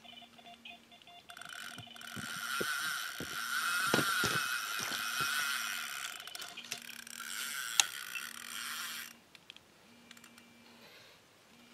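Delkim TX-I carp bite alarm sounding a continuous run tone while the reel's drag screams as a running carp pulls line off the spool. There are several knocks from the rod pod and rod being handled. The drag stops about nine seconds in.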